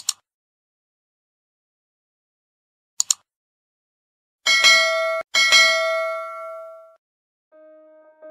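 A click, then a quick double click, then a bell chime struck twice, each strike ringing out for a second or two. This is the sound effect of a subscribe button's bell icon.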